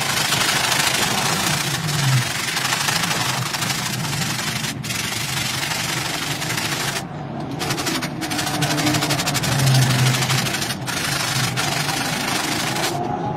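Stiff hand brush scrubbing a wet, soapy rug in rapid strokes: a dense, steady scratching hiss that breaks off briefly a few times.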